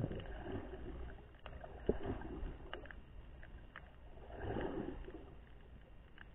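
Muffled underwater sound from a submerged camera: swishing water movement that swells and fades a few times, over a low rumble, with scattered sharp clicks and a couple of knocks, the loudest at the very start and about two seconds in.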